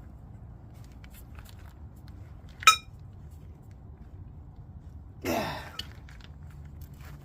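A tool clanking once against metal with a brief ring, then a man's strained groan falling in pitch.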